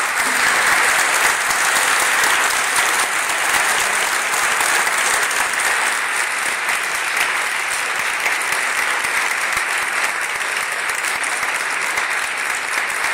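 Crowd applauding, a loud, steady, continuous clapping.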